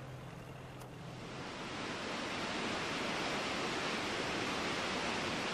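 River rapids: rushing white water that swells up over the first two seconds and then runs on steadily. A low steady hum underneath stops about a second in.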